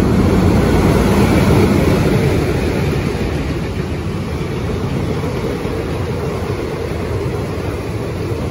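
A pair of Alco diesel locomotives running through at speed, loudest in the first two seconds as they pass, followed by the steady rumble of passenger coaches rolling over the rails, with rain falling.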